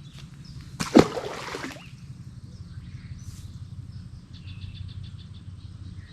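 A short, loud rustling burst with a sharp knock at its start about a second in, over a steady low outdoor rumble. Faint high chirps follow, typical of birds or insects.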